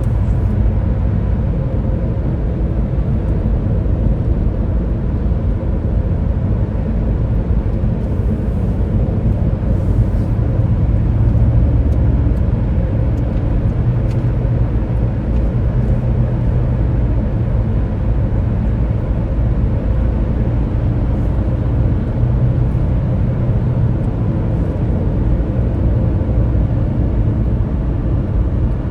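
Steady low rumble of a car driving: road and engine noise, even throughout.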